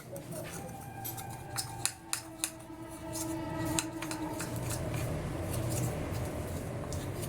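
Metal spoon clicking and scraping against a small bowl while stirring honey and borax powder together: a few sharp clicks in the first couple of seconds, then steadier scraping.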